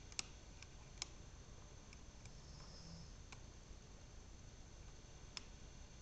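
Faint metallic clicks of a dimple pick working the pins inside a brass Mauer Elit 2 dimple lock cylinder. There are a handful of sharp, scattered clicks; the loudest comes just after the start and another comes about a second in.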